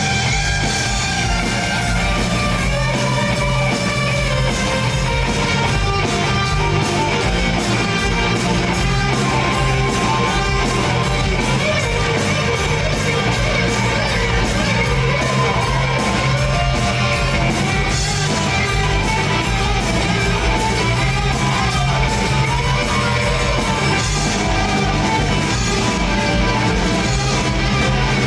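Southern rock band playing: electric guitars with a lead line that bends in pitch, over bass and drums with steady cymbals.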